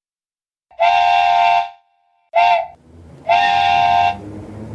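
Cartoon steam-train whistle blowing three times: long, short, long. Near the end a quieter, lower rumble takes over.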